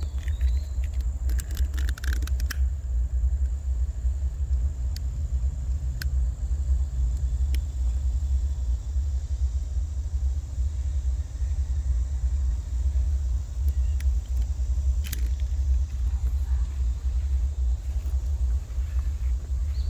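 Wind buffeting the microphone, a steady low rumble, with a few sharp clicks and knocks about two seconds in and again later on.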